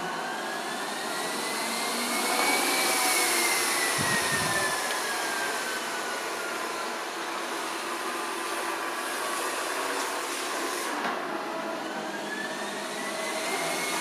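Yeedi Mop Station Pro robot vacuum running, its suction-fan whine rising in pitch and getting louder over the first few seconds, slowly falling, then rising again near the end. This is the automatic suction boost as it moves onto carpet.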